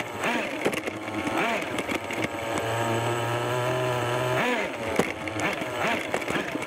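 Kyosho Mad Force RC monster truck's small nitro engine revving up and down as the truck drives. Partway through it holds one steady high note for about two seconds, then the revs drop sharply.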